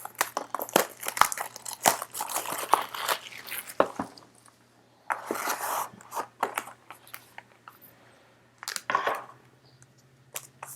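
Crinkling and tearing of the plastic wrapping on a sealed box of basketball trading cards being opened: a quick run of crackles for about four seconds, then two longer rustles.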